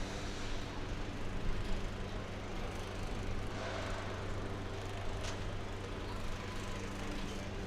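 Heavy engine running steadily at idle with a low, even hum, typical of construction machinery working on a building site.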